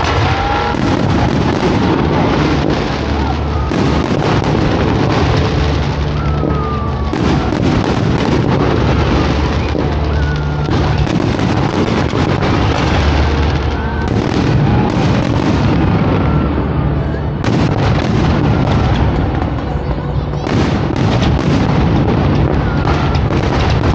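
Aerial fireworks going off in a rapid series of bangs and crackles, with a few short whistling glides, over bass-heavy music and crowd voices.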